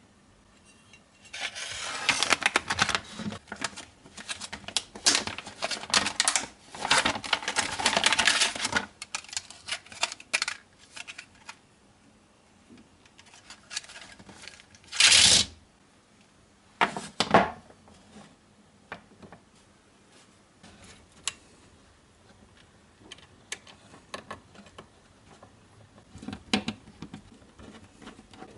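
Hands handling small electronic parts and their packaging: a long run of quick clicks and rattles of plastic and metal, a short loud rustle about halfway through, and scattered light clicks near the end.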